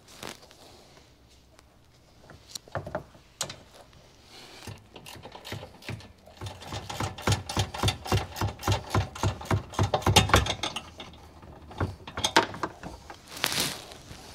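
Hand ratchet wrench clicking as a bolt is turned, a few scattered clicks and knocks at first, then a quick, even run of about four clicks a second for several seconds. A brief rustle comes near the end.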